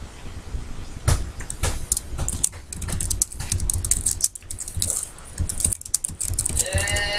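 Computer keyboard typing: a run of irregular key clicks starting about a second in. A tune starts near the end.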